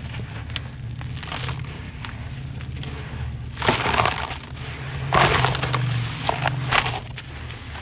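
Hands squeezing and crumbling dry, gritty sand-cement crumbs and powder in a plastic tub, a crunching, rustling grind. The crunching is loudest in two bursts about three and a half and five seconds in, and a shorter one near seven seconds, over a steady low hum.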